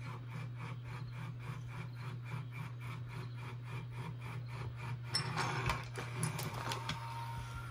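Small robot's motors running with a rapid pulsing whir, about four pulses a second, over a low steady hum. About five seconds in, a card sign rubs and scrapes against the robot and the table.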